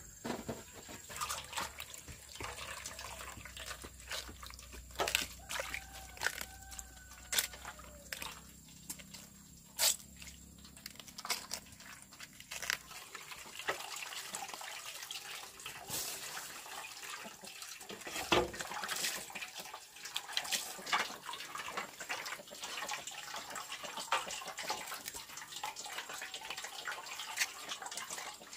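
Water dripping and splashing, with frequent small clicks and knocks throughout and one sharper knock about two-thirds of the way through. A low steady hum underneath stops a little before halfway.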